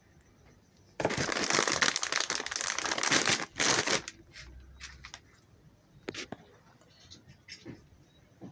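Plastic chip packets crinkling loudly as they are handled, from about a second in for about three seconds. A few light clicks and taps follow.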